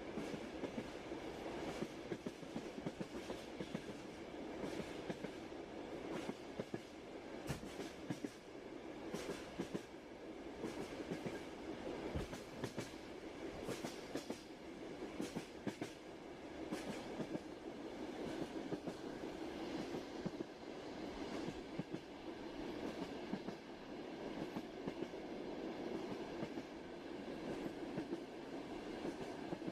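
Train rolling along the track: a steady rumble with irregular clacks of the wheels over rail joints, coming most often in the middle stretch.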